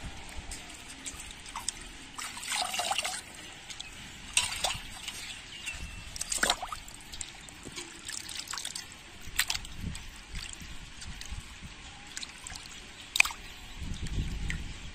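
Water splashing and dripping as cut pomfret fish pieces are rubbed and rinsed by hand in an aluminium basin of water, in irregular short splashes. There is a single sharp click near the end.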